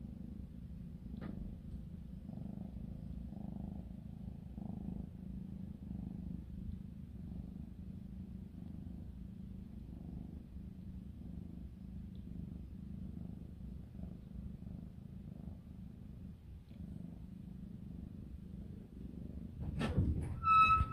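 House cat purring steadily and rhythmically, close to the microphone, as it is stroked. Near the end there is a short bump and a brief high-pitched tone.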